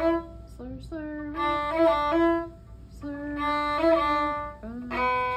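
A violin played with the bow: short repeated notes in rhythmic groups, separated by brief pauses.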